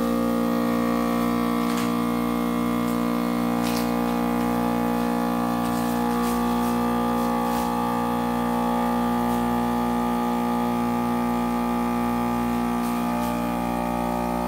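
Countertop vacuum sealer's small pump running steadily, drawing the air out of a bag around a beef tenderloin; a weak pump that needs a long run to evacuate the bag.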